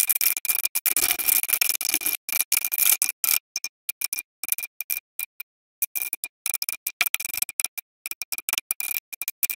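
A rapid string of short clicks and rattles from hands reconnecting plastic connectors and ribbon cables inside an opened Yamaha DX7 synthesizer, chopped into many brief pieces with sudden silences between. A faint steady high tone runs beneath.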